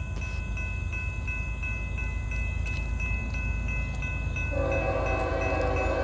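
Grade crossing bell ringing steadily at about three strokes a second over a low rumble; about four and a half seconds in, the horn of the approaching Norfolk Southern intermodal train's lead locomotive starts sounding, a sustained chord that becomes the loudest sound.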